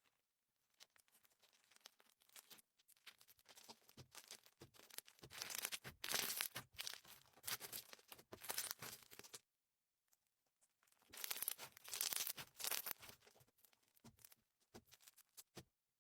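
Slime being squished and stretched by hand, with crackling and popping in two stretches: from about four seconds in, and again from about eleven seconds in.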